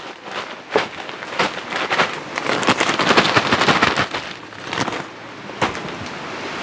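Plastic packaging crinkling and rustling as it is handled in and around a cardboard box, a dense crackle that is loudest in the middle, with a sharp click near the end.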